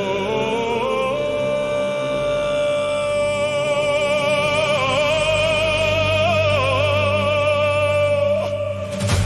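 Epic music with a long wordless sung line that glides up, then holds with vibrato over a steady low drone. A sudden crash cuts in near the end.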